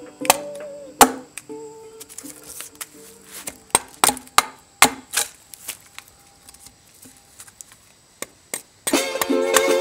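Bearded axe chopping into a birch log round: an uneven series of sharp strikes, about a dozen. Guitar music fades out in the first couple of seconds, and a loud strummed guitar comes back in near the end.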